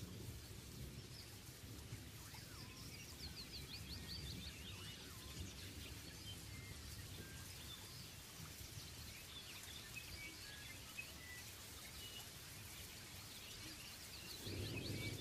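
Faint birdsong: runs of quick chirps and short whistled notes, heaviest about three seconds in and again near the end, over a steady low rumble and hiss.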